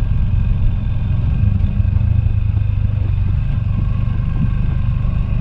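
Motorcycle engine running at a steady, even speed while the bike rides along a dirt road.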